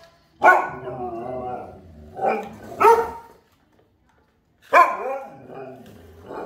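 Siberian huskies barking and calling in loud, wavering woo-like bursts: a long call about half a second in, two short barks around two and three seconds, and another long call near five seconds. The dogs are barking in alarm at an unfamiliar object being pushed toward them.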